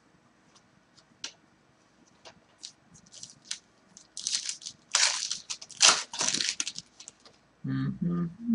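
A card pack's wrapper crinkling and tearing as it is opened, in a dense run of crackles lasting about three seconds. It is preceded by a few light ticks and rustles from cards being handled. A short burst of voice comes near the end.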